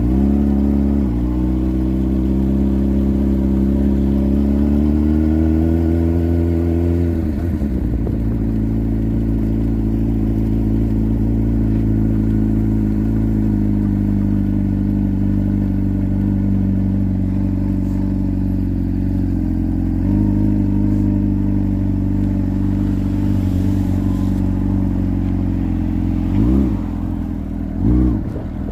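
Motorcycle engine running under way. Its note climbs for several seconds, drops sharply about seven seconds in, then holds a steady cruising pitch. Two short rev changes come near the end.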